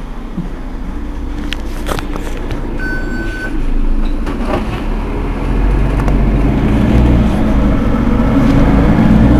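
Mercedes-Benz Citaro G articulated city bus's diesel engine running, growing steadily louder and deeper from about five seconds in as it revs up. A short beep sounds about three seconds in.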